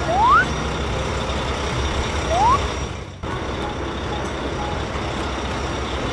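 Cartoon sound effect of a truck engine running steadily, with a short rising whistle at the start and another about two seconds in; the engine sound dips and breaks off briefly about three seconds in.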